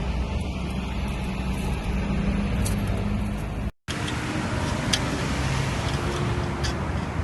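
Car engine running steadily after being started. The sound drops out for an instant about four seconds in, and a few light clicks follow.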